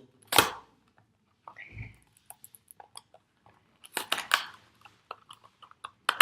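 Toy packaging being handled and opened by hand: a sharp knock about half a second in, a dull bump, then scattered small clicks and taps with a spell of rustling near the middle.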